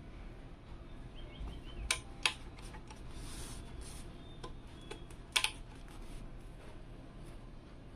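Hands handling a motherboard over its box: a few sharp clicks and taps, two close together about two seconds in and another just past five seconds, with fainter ticks between them.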